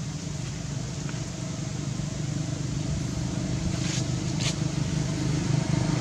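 A motor engine running off-screen, getting steadily louder as it comes closer, with two brief rustles a little after halfway.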